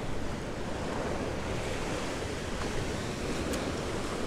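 Steady wash of surf against a rock jetty, with wind blowing on the microphone.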